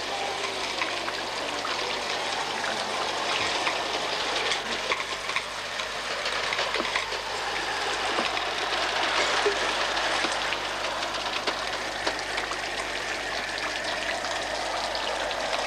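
A 3.5-inch-gauge Hornby live-steam model of Stephenson's Rocket running, its steam hissing steadily, a little louder around the middle as it passes close.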